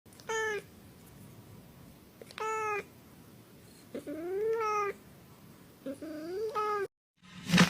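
A cat meowing four times: two short meows, then two longer, drawn-out ones that rise and fall in pitch.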